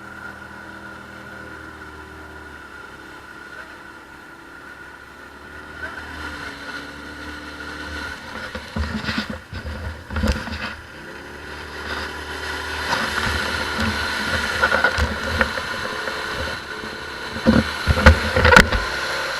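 ATV engine running steadily, then revving up hard in short bursts about halfway through and again near the end.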